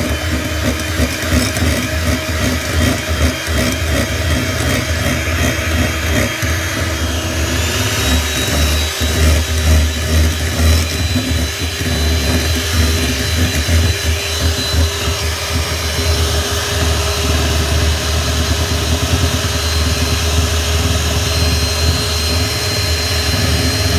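Bajaj electric hand mixer running steadily, its beaters creaming butter and icing sugar in a glass bowl. The motor's pitch steps up about seven or eight seconds in.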